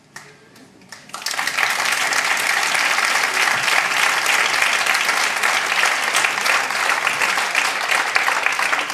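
Audience applauding: a few scattered claps, then about a second in the clapping swells into full, steady applause.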